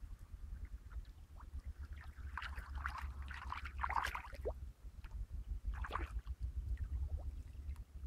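A hooked fish splashing at the river's surface as it is reeled in, in two bouts: one from about two to four and a half seconds in, a shorter one near six seconds. Wind rumbles on the microphone throughout.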